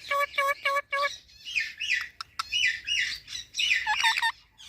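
Pet parrot calling: a quick run of short, evenly spaced pitched notes, about four a second, then a string of harsher falling chirps.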